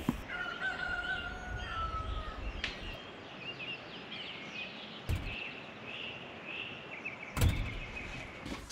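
Wild birds chirping and calling in short rising and falling notes, with one longer falling whistle about half a second in. Light wind noise fades out about three seconds in, and there are a few faint knocks and a louder thump near the end.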